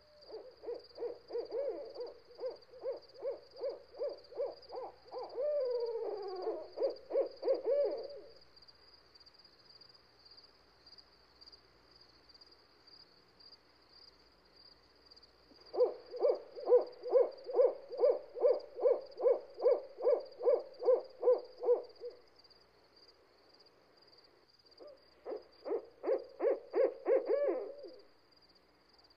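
An animal's rapid hooting calls, about two to three hoots a second, in three bouts with pauses between them. A steady high insect trill runs behind.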